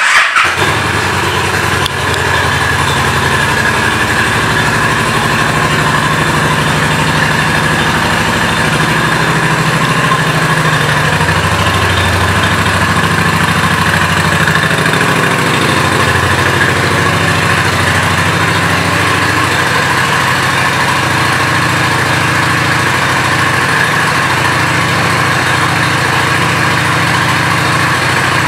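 Honda Shadow Aero 750's liquid-cooled V-twin engine running at a steady idle.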